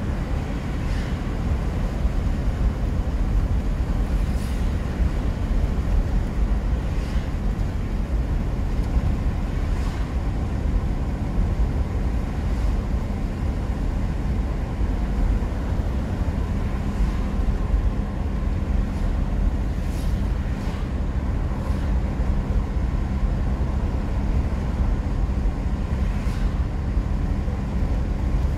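Steady engine and tyre noise inside a moving car's cabin at cruising speed: a low, even rumble with a faint engine hum and a few faint clicks.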